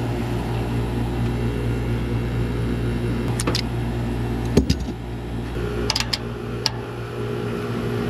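Vacuum pump running with a steady hum while it evacuates the refrigerant system. Over it come a few sharp clicks and a knock as the low-voltage wires are fitted to the contactor terminals. The loudest knock falls just past halfway.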